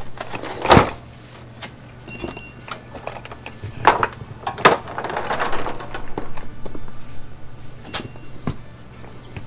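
Several sharp knocks and clunks of tools and parts being handled, about four spaced out, with a scraping stretch near the middle and a steady low hum underneath.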